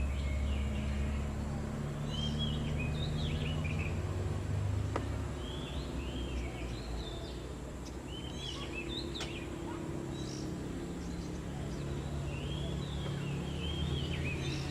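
A songbird calling in short clusters of quick rising and falling whistled notes every few seconds, over a steady low rumble.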